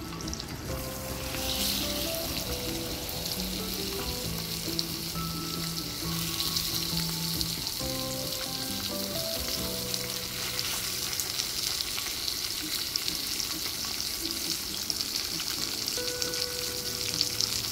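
Whole sand lances sizzling as they fry on a hot round griddle pan. The steady hiss grows louder about a second and a half in and holds.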